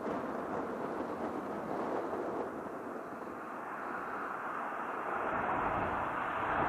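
Military aircraft flying low through a valley: a steady engine rumble that grows louder near the end as it approaches.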